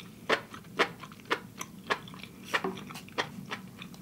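A person chewing a mouthful of food with the mouth closed, close to the microphone: wet mouth clicks at an even pace of about two a second.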